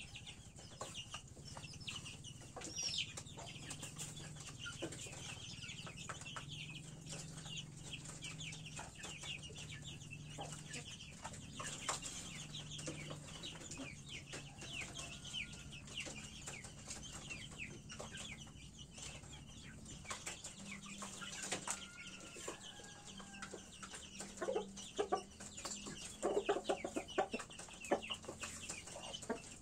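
Chickens clucking while small chicks peep continuously in short high chirps, with scattered light clicks; the clucking grows louder and busier near the end.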